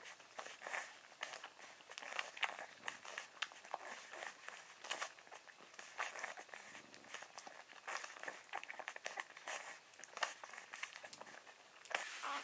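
Faint, irregular rustling and crinkling with many small clicks and crackles scattered throughout.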